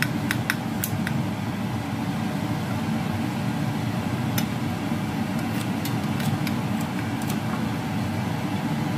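Kitchen scissors snipping through a fried glutinous rice flour pancake with a crisp crust: short sharp cuts, a few at the start and a run of them from about four to seven seconds in. Under them runs a steady low mechanical hum.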